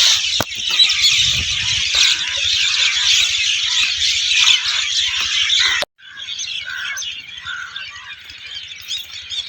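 Dense chirping of many small birds, high-pitched and continuous. About six seconds in it breaks off suddenly, then goes on quieter.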